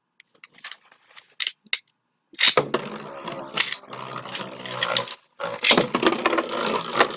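A few light plastic clicks from Beyblade parts being handled. Then, about two and a half seconds in, Beyblade Burst tops are launched and spin, scraping and clattering against the plastic stadium with a steady hum beneath. The noise breaks off briefly past the middle and picks up again.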